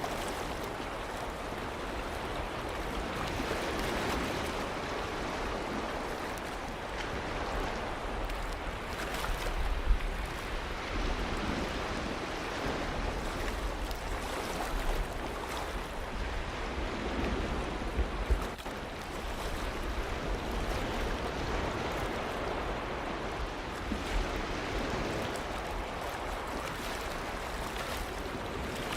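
Ocean surf washing onto a beach: a steady hiss of waves that swells and eases every few seconds, with a low rumble underneath and two brief louder thumps, about ten and eighteen seconds in.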